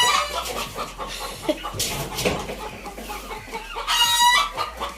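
Chickens clucking and calling, with a loud call right at the start and another loud, drawn-out call about four seconds in.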